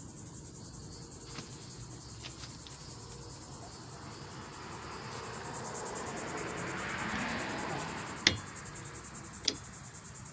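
Plastic rear wiper blade being slid and snapped onto its arm: a scraping rub that builds for a few seconds, then two sharp clicks about a second apart as it seats.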